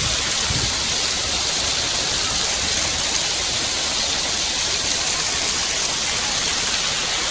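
Heavy downpour: a steady, unbroken hiss of rain pouring down and splashing on the wet pavement.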